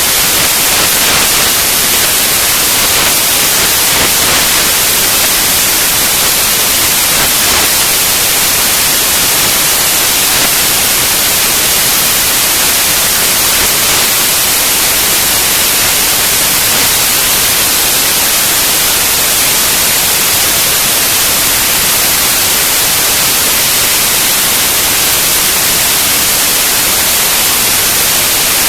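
Loud, steady hiss of noise, strongest in the high range, with no engine note or other distinct sound coming through.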